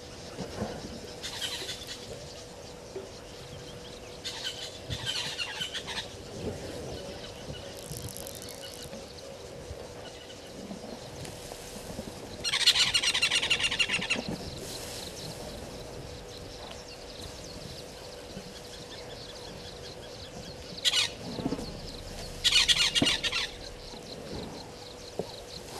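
Birds calling in short bursts of rapid, chattering notes, about six times, the longest and loudest about halfway through. A faint steady hum at one pitch runs underneath.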